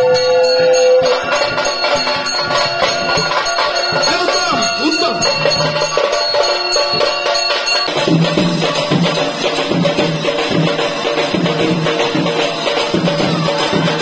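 Puja sounds: a conch shell's long steady note dips and stops about a second in, with bells ringing. Then a dense jumble of ringing bells follows, and from about eight seconds in a drum beats a steady rhythm, about two strokes a second, with jingling percussion.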